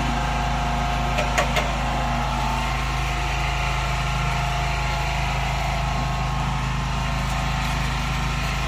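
Generator engine running at a steady hum, with a few light clicks about a second in.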